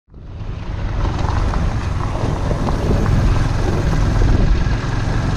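Motorcycle ride heard from on the bike: a steady rush of engine and road noise buried in heavy wind buffeting on the microphone, starting abruptly.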